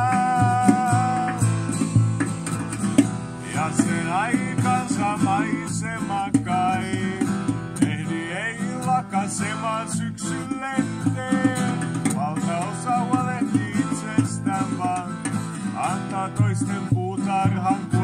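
Acoustic guitar strummed in a steady rhythm, with low hand-struck thumps on a box drum. A pitched melody line with sliding, bending notes carries on above.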